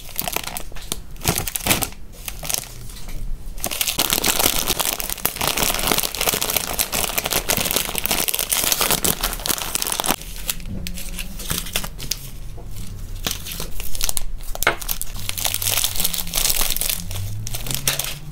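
Clear plastic zip-lock bags and small snack packets crinkling and rustling as they are handled and pressed together. The crinkling is dense and crackly, with a few brief pauses.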